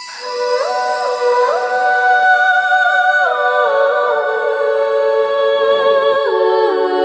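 Calm ambient music: wordless, humming, choir-like held notes that slide together from one chord to the next every second or so.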